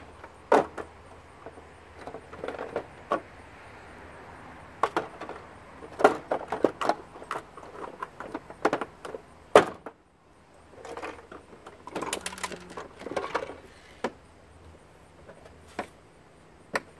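Hard plastic foot massager housing pieces being handled and fitted together, giving an irregular run of knocks, clicks and rattles.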